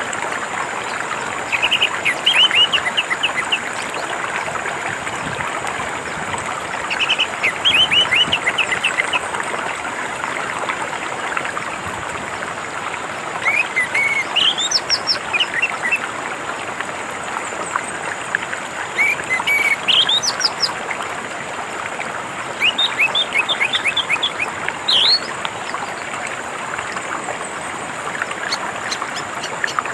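Orange-headed thrush (anis merah) singing in short phrases of quick repeated notes and rising whistles, a phrase every few seconds, over the steady rush of flowing water.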